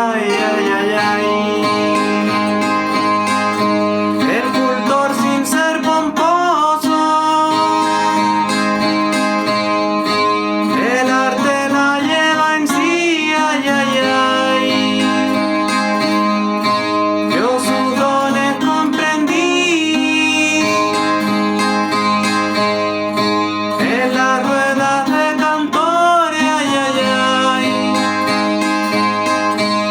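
Chilean guitarrón, a 25-string plucked folk guitar, playing a steady strummed and plucked accompaniment, with a man's voice singing long, wavering wordless phrases that come back every six or seven seconds.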